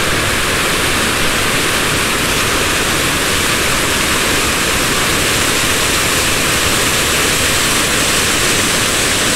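Powerful waterfalls on a mountain river: a loud, steady roar of falling water that never lets up.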